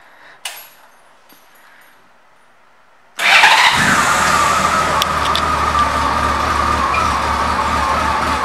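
A click, then about three seconds in the 1999 Honda Valkyrie Interstate's 1520 cc flat-six engine starts abruptly and settles into a steady idle.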